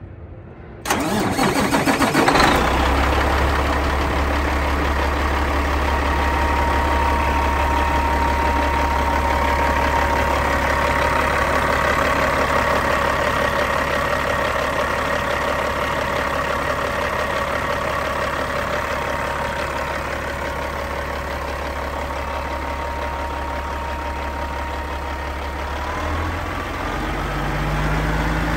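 Caterpillar 3406E inline-six diesel cranking briefly on the starter and catching about two seconds in, then idling steadily. Near the end its engine speed begins to rise.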